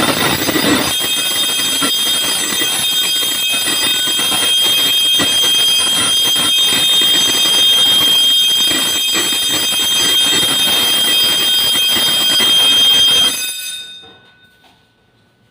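Fire alarm ringing continuously, set off by smoke at a smoke detector during a test of the fire alarm control panel. It cuts off suddenly about thirteen and a half seconds in.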